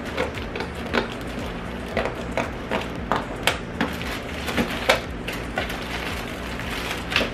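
Clear plastic wrapping on a pack of towels crinkling and crackling as it is handled and opened, with irregular sharp crackles and a few louder snaps.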